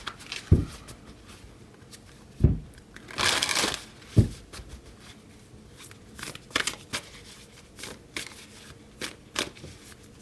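A deck of oracle cards being shuffled and handled, with a few dull knocks on the table in the first four seconds and a short rush of shuffling a little after three seconds, then scattered light clicks of cards.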